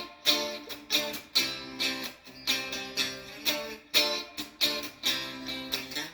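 Epiphone SG Modern Figured electric guitar played clean through an amp, its pickups split to single coil in the middle (both-pickup) position. Chords are strummed about twice a second, each ringing out and decaying before the next.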